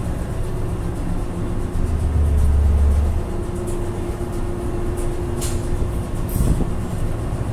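Steady low rumble of a merchant ship's running machinery heard inside a store room. It swells heavier for about a second near the start, and a steady mid-pitched hum joins in about three seconds in.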